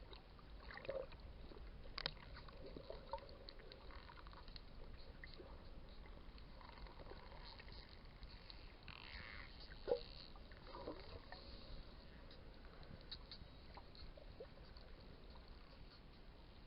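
Wild dolphins heard faintly underwater: scattered clicks and a few brief squeaky calls over a low water hiss, with one sharper click about ten seconds in.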